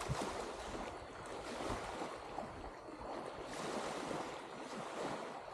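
Small waves washing steadily onto a sandy beach, with wind rumbling on the microphone.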